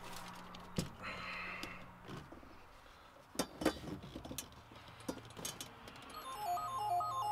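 A few light clicks and knocks of a steel seat bracket being handled against a metal mounting frame, over quiet background music. A repeating stepped electronic melody comes in near the end.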